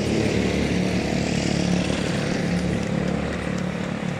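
Steady engine drone with a rushing noise over it.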